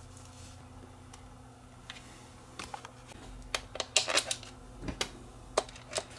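Sharp plastic clicks and knocks from a handheld clamp meter's battery compartment as its cover is fitted and a screwdriver turns the cover screw. The clicks start about two and a half seconds in, over a faint steady hum.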